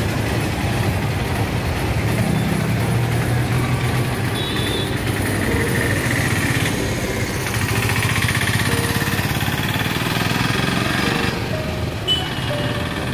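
Busy city street traffic: motorcycles, auto-rickshaws and cars passing with their engines running, a low engine drone loudest about two to four seconds in. A few short high beeps and a brief sharp knock about twelve seconds in sound over the steady traffic.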